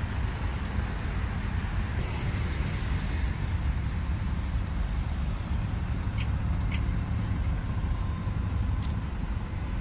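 Steady low rumble of diesel engines from the wooden abra water taxis at the quay, with a couple of faint clicks midway.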